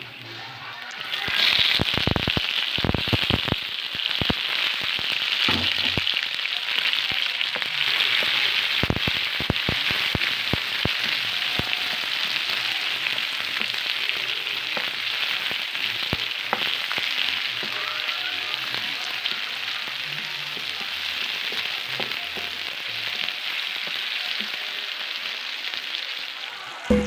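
Food frying in a hot pan: a steady sizzle that swells up about a second in and holds, with scattered clicks and knocks of a utensil, most of them in the first ten seconds.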